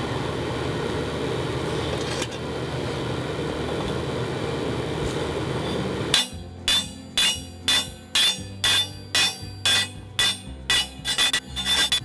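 Steady roar of the charcoal foundry furnace's fire and blower. About six seconds in, hammer blows begin on a red-hot railroad spike laid on a steel block used as an anvil. Each strike rings sharply, about two a second at first and quickening to about three a second.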